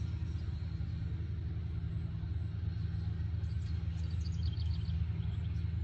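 A steady low rumble throughout, with a short run of small bird chirps about three and a half to five seconds in.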